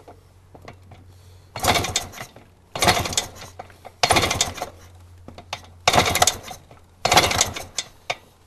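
Husqvarna 250 CR two-stroke single being kicked over on its kickstarter for a compression test, with the gauge in the plug hole so it does not fire: five short mechanical kicks about a second apart, and a sixth starting at the end.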